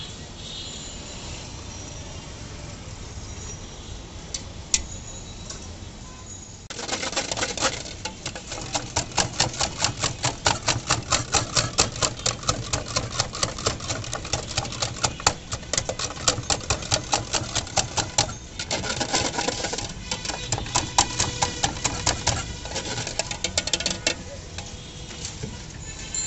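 A stick rapidly churning aloe vera gel in a stainless steel jug, knocking against the metal about four times a second, with a brief pause partway through. It starts about a quarter of the way in and stops shortly before the end.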